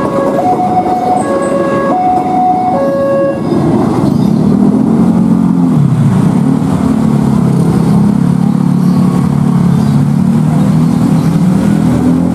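A train arriving behind a diesel-electric locomotive. For the first few seconds an alternating two-note warning tone sounds, low then high, each note about 0.7 s long. Then the locomotive's low, steady engine hum comes in louder as it pulls in.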